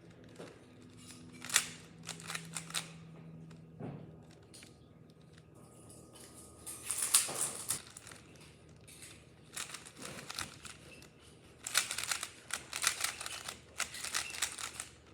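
Speed cube being turned by hand: quick runs of plastic clicks and clacks as the layers snap round, in several flurries with short pauses between.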